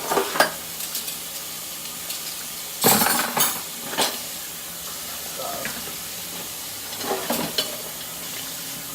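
Kitchen tap running steadily into a sink, with dishes and cutlery clattering a few times as they are washed.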